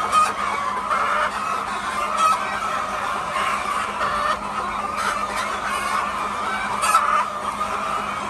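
A flock of laying hens clucking together, many overlapping calls in a steady din, with a few sharper, louder calls standing out now and then.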